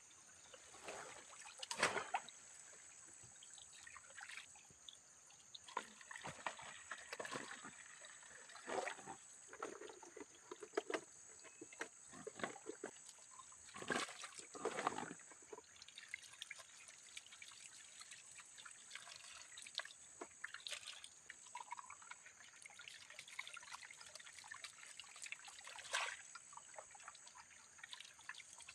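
Water trickling and splashing in irregular bursts as ginger root is washed by hand, over a steady high-pitched whine.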